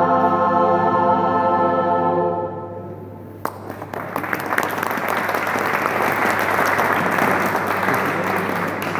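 A pop and jazz choir holds the final chord of the song, which fades out over about a second. Audience applause then breaks out suddenly about three and a half seconds in and continues steadily.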